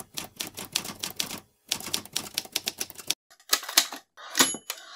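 Manual typewriter keys striking in quick runs, with short pauses about a second and a half and three seconds in. Near the end a bell rings, the typewriter's end-of-line bell.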